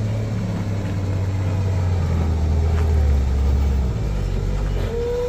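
Heavy vehicle engine running with a deep, steady drone, its pitch dropping a little about four seconds in. A steady higher tone starts just before the end.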